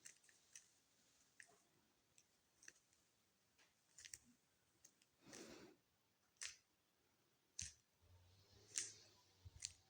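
Faint clicking of a Rubik's cube's layers being turned quickly while an OLL algorithm is performed: a scattered run of short clicks, with a few louder ones in the second half and a soft brushing sound partway through.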